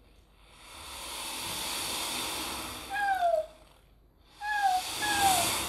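Body-made foley sound: breath blown out in two long swelling hisses, with three short falling whistles near the end.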